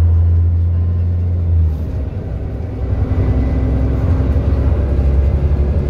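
Alexander Dennis Enviro 400 double-decker bus's engine and drivetrain running with a strong steady low drone. About two seconds in the drone drops away, then builds again, rougher and more uneven.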